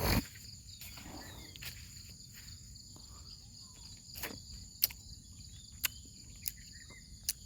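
Steady, high-pitched drone of crickets or other insects in the farm's trees, with a thump right at the start and scattered sharp clicks and taps, about half a dozen.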